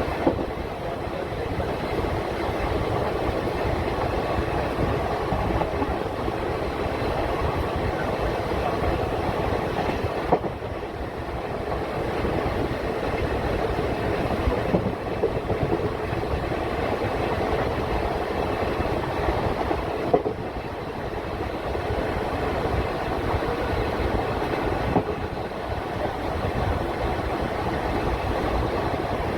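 Passenger train running along the track: a steady rumble and rattle of wheels on rails, with a few sharp clicks spaced several seconds apart.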